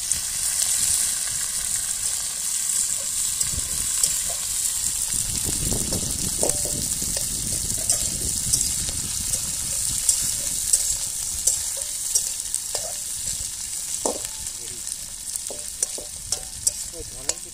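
Sliced onions, garlic, ginger and green chillies sizzling in hot oil in a metal kadai as they are stir-fried, with a steady hiss and a metal spatula scraping and clicking against the pan, the clicks coming more often in the second half.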